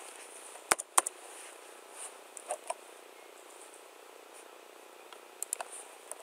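Scattered clicks of a computer keyboard and mouse. Two sharp clicks come about a second in, a few fainter ones follow, and a short run of quick clicks comes near the end, over a faint steady hiss.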